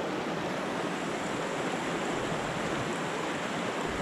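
Small mountain creek rushing steadily over rocks and riffles, running high with recent rain.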